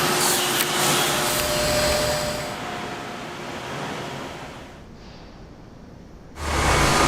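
Wood-processing machinery noise: a steady noisy din that fades over a few seconds to a low rumble, then a loud low machine noise starts suddenly near the end.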